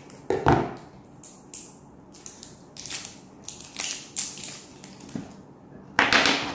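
Small plastic packaging being cut open and crinkled with a utility knife: a string of short crackling, scraping noises, the loudest about half a second in and near the end.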